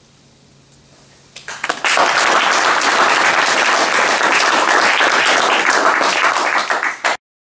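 Audience applauding at the end of a talk. The clapping swells in after a second or so of quiet and cuts off abruptly near the end.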